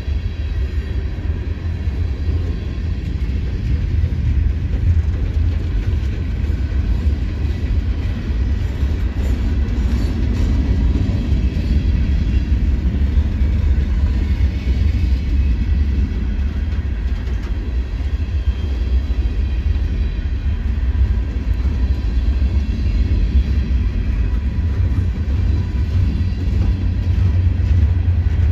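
Freight train's tank cars and covered hoppers rolling past close by: a steady, even rumble of steel wheels on rail.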